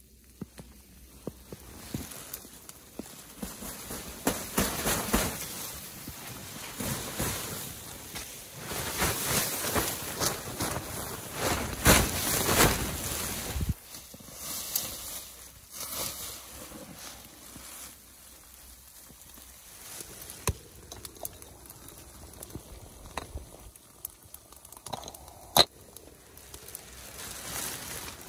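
Footsteps crunching and rustling through snow-dusted dry leaves, loudest around the middle, with scattered sharp clicks and crackles.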